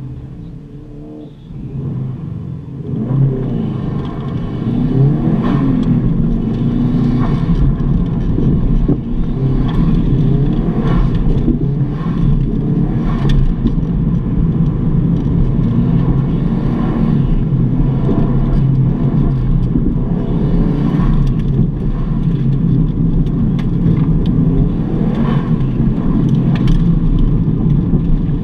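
1996 Subaru Impreza WRX STi's turbocharged flat-four engine, heard from inside the cabin, revving hard and falling off again and again as the car is driven hard, accelerating and braking. It starts quieter and gets much louder about two to three seconds in as the car sets off.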